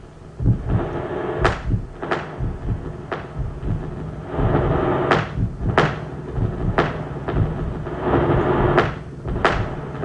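Loud, dense noise from a live experimental sound performance: a rumbling wash of noise struck by a string of sharp bangs at uneven intervals, roughly one a second.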